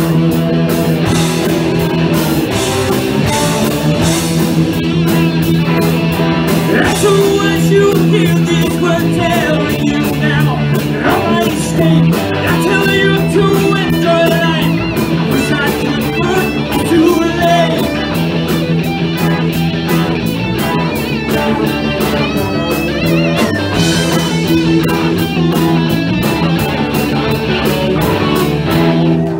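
Live rock band playing: electric guitars, bass guitar and a drum kit, with vocals.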